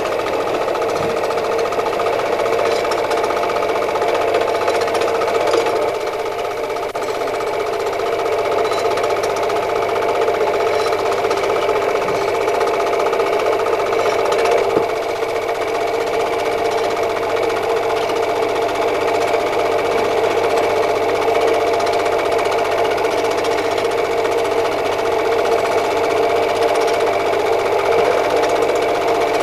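Film projector running: a steady, fast mechanical clatter.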